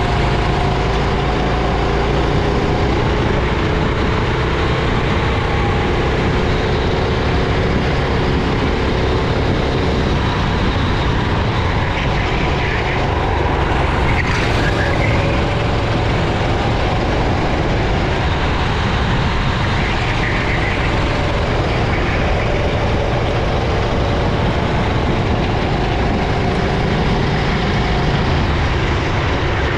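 Racing kart engine running continuously at speed, its pitch slowly climbing and dipping as it accelerates and lifts.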